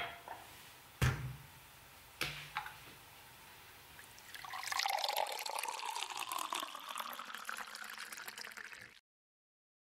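A few sharp knocks, the loudest about a second in, as a glass tumbler is handled on the counter, then water pouring from a plastic bottle with a flip-top lid into the glass, splashing for about four seconds before cutting off suddenly.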